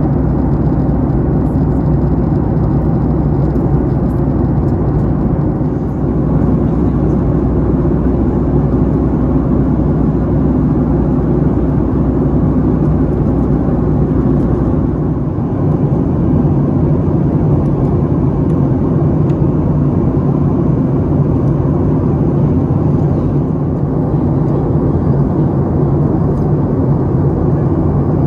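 Steady cabin noise of a Boeing 737-8 MAX in flight: the hum of its CFM LEAP-1B jet engines mixed with the rush of air over the fuselage. About halfway through, the deepest rumble drops away and the rest carries on.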